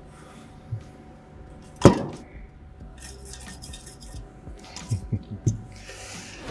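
Small metal objects clinking and knocking on a tabletop as short stainless steel pipe sections and a metal bottle are handled. One sharp clink about two seconds in, with a few lighter knocks later.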